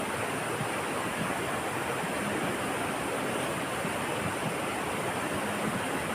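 Steady rush of flowing river water, an even unbroken hiss with no distinct events.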